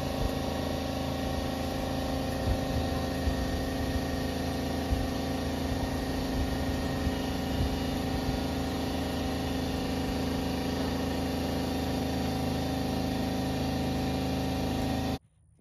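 Steady hum of a running machine, with several constant tones, unchanging throughout; it cuts off abruptly near the end.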